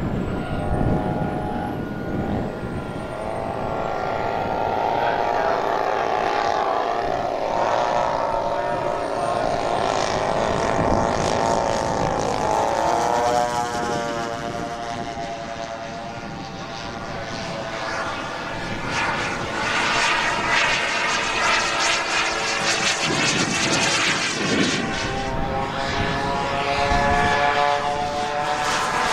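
Large radio-controlled model jet, a scale de Havilland Vampire, flying past with a steady engine note. Its pitch drops sharply about halfway through as it passes, then builds again as the model comes back around.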